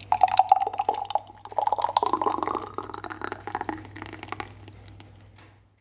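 Liquid pouring and dripping into a glass vessel, with many small gurgling clicks and a pitch that climbs as it fills, then fading out; a faint low hum underneath.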